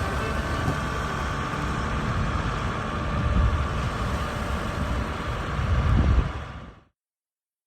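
Diesel engine of a Kioti compact tractor running steadily, then fading out quickly near the end.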